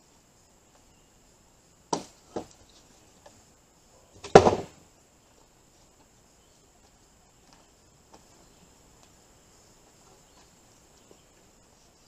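A slatted wooden panel being set down onto a wooden frame: two wooden knocks about two seconds in, then a louder clattering thump about four seconds in. A steady high insect drone runs underneath.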